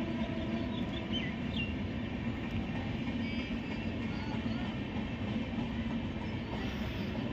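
Passenger train of LHB coaches rolling past at speed: a steady rumble of wheels on the track.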